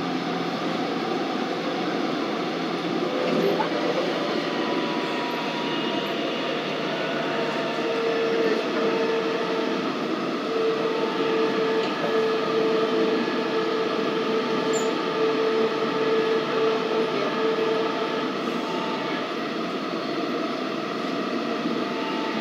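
Busan Metro Line 2 train running, heard from inside the passenger car: a steady rumble of wheels and track, with a high steady tone sounding on and off from about eight to eighteen seconds in.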